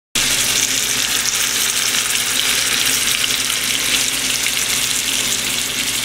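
Boneless, skinless chicken thighs sizzling steadily in hot olive oil in a skillet as they brown. The sizzle cuts in abruptly just after the start.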